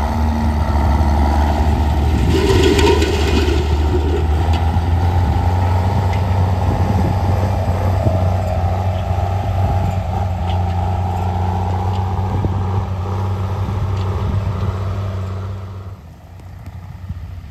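Heavy engine of harvest machinery running steadily with a deep, even hum, dropping away sharply about sixteen seconds in.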